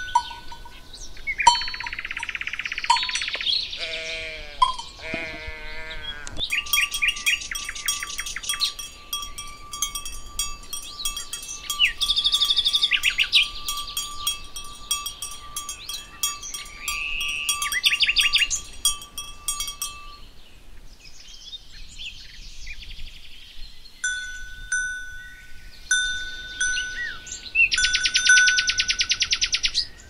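Alpine pasture ambience: cowbells ringing in long steady tones, and birds singing with quick chirps and trills through the middle. A few bleating livestock calls come in the first six seconds, and a dense rattling trill sounds near the end.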